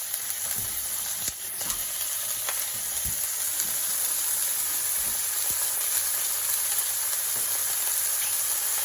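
Olives, capers and garlic sizzling steadily in hot oil in a frying pan, with a few light clicks and knocks in the first three seconds.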